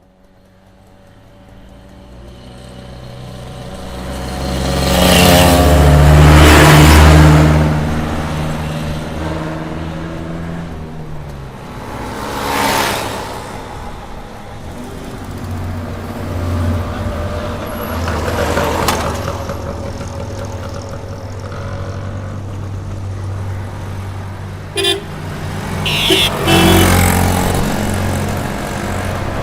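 Road traffic passing close by: a string of vehicles going past one after another over a steady engine hum, the loudest pass-by about five to seven seconds in, with short horn toots near the end.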